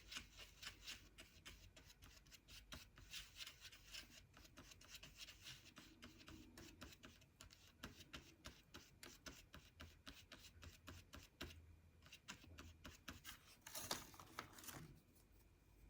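Faint clicks and scrapes of a paintbrush working freshly mixed orange paint, a run of small taps with a slightly louder patch near the end.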